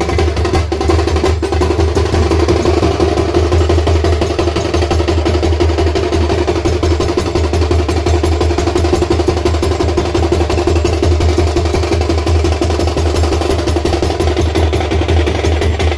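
Fast, continuous drumming, the strokes coming thick and even, over a steady low drone.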